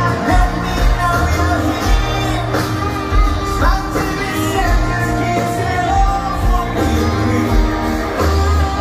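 Live rock band playing a song with a lead singer, loud over the amphitheatre PA.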